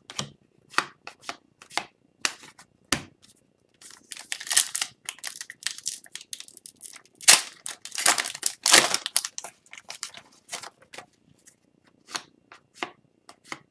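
A foil trading-card pack being torn open and crinkled, with denser spells of crinkling about four seconds in and again around eight seconds. Between them come short crisp snaps and flicks as hockey cards are thumbed through one by one.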